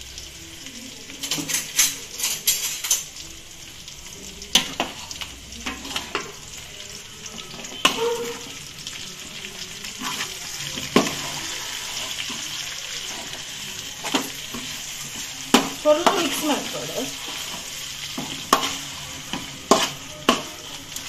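Masala-coated chicken pieces frying in a wide metal pan with a steady sizzle, while a metal spoon stirs them, scraping and clicking against the pan at irregular moments.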